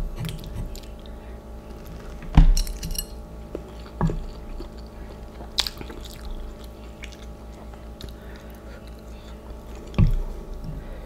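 Person chewing a mouthful of instant noodles, with four sharp clicks or knocks, the loudest about two and a half seconds in and another near the end.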